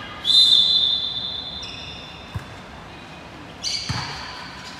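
A volleyball referee's whistle gives one long blast, the signal to serve, and is the loudest sound. The ball is then hit twice, about a second and a half apart, with a high shout at the second hit.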